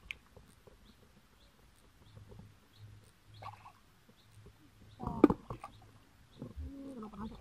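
Hands groping in shallow muddy water, with faint sloshing and squelching of wet mud. About five seconds in there is a louder splash together with a short vocal sound, and a voice starts near the end.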